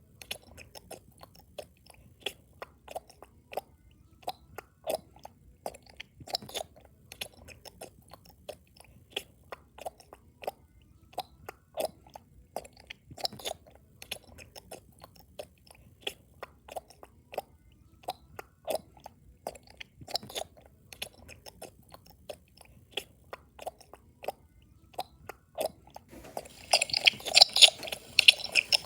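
Loud chewing: a steady run of irregular wet clicks and smacks of a mouth working food. Near the end it turns into a denser, louder crunching.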